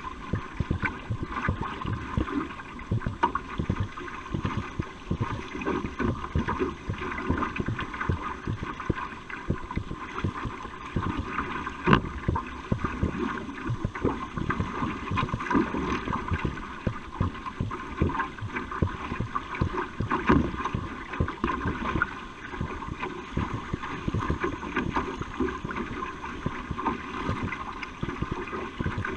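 Water rushing and splashing along the hull of a racing canoe being paddled at speed, with irregular splashes and one sharper splash about twelve seconds in.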